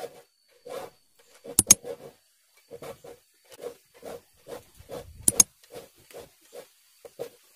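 Hand file rasping across the teeth of a wood hand saw in short, even strokes, about two to three a second, as the saw is sharpened. Twice a sharp double click cuts through, about a second and a half in and again near the middle.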